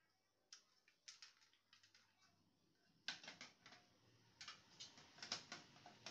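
Irregular small clicks and taps of laser printer parts being handled and worked apart by hand, coming in clusters, with the sharpest clicks about three seconds in and again about five seconds in.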